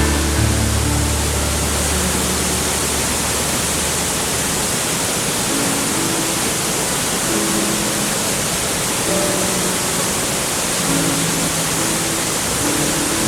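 Steady rushing of a mountain waterfall, an even hiss. Soft background music of held notes plays under it, and a deep bass note drops out about four and a half seconds in.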